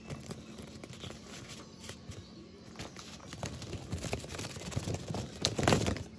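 Cardboard and plastic packaging of a paperlike screen protector being handled and pulled open, making irregular rustling and crinkling that gets busier and louder over the last few seconds.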